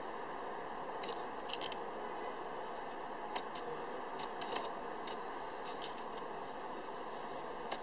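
Paper playing cards being picked up and turned over on a table: scattered light clicks and snaps of the card stock, over a steady background hiss.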